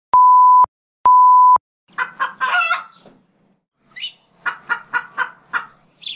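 Two long, steady bleeps like a censor tone, then chicken clucking in two runs, the second a fast string of short clucks.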